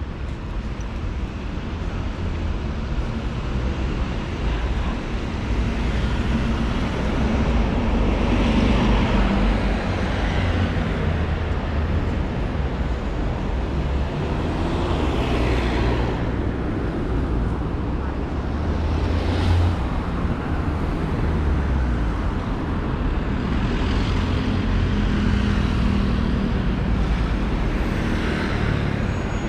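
City street traffic: cars and motor scooters passing one after another over a steady low rumble, several of them swelling up close as they go by.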